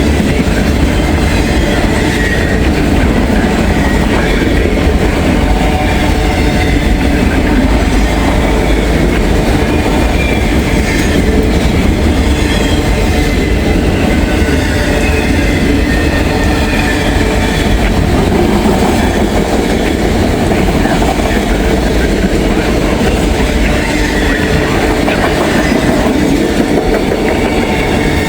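Freight train cars rolling past at close range, a steady loud rumble with the clack of wheels over the rail joints and a faint wheel squeal.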